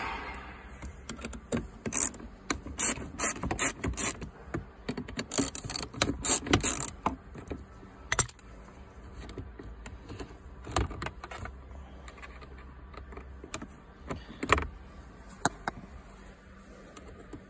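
Hand socket wrench on an extension clicking and metal tools and bolts clattering as the gear selector's mounting bolts are undone. Quick runs of clicks come over the first several seconds, then a few single knocks.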